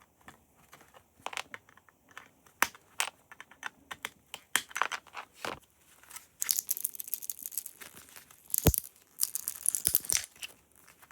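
Components being pried and snapped off a circuit board with hand tools: scattered clicks and snaps, then a longer stretch of crunching, scraping noise in the second half with a few sharp cracks.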